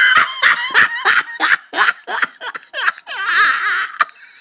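Laughter: a quick run of short bursts, then one longer wavering high laugh that fades out just before the end.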